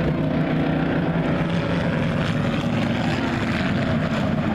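Engines of a pack of race cars and pickup trucks running together as they lap an oval short track, a steady continuous engine noise.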